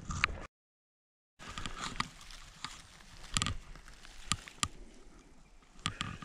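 Rustling of moss and low blueberry shrubs with several sharp snaps and clicks as a mushroom picker moves across the forest floor and handles a red-capped boletus. The sound cuts out completely for about a second near the start.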